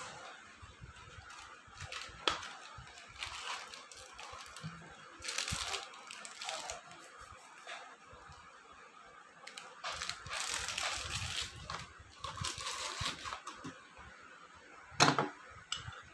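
Rustling and crinkling of dry bhel ingredients and snack packets being handled and mixed, in irregular bursts, with one sharp knock about 15 seconds in.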